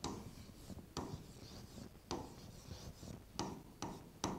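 Pen tapping and scratching on the screen of an interactive whiteboard while letters are handwritten: a faint scratch with sharp taps, roughly one a second, as each stroke touches down.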